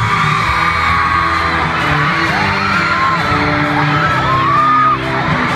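Loud concert music with steady bass notes, and fans screaming and whooping close by in repeated high cries that rise and fall.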